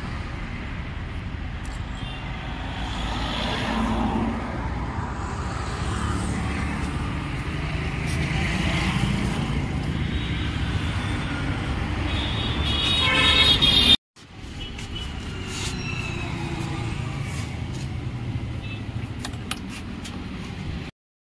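Road traffic rumbling steadily, with a vehicle horn honking a little before a sudden cut about two-thirds of the way through; a few light clicks follow.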